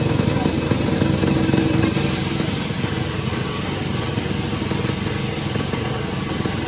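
Sawmill machinery engine running steadily, a little louder for the first two and a half seconds.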